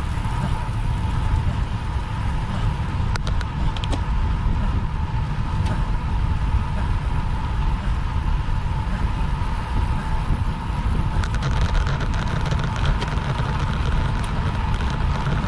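Wind rushing over the microphone of a camera on a bicycle being ridden: a steady low rumble with a faint steady whine over it. A few light clicks come around three seconds in and again after about eleven seconds.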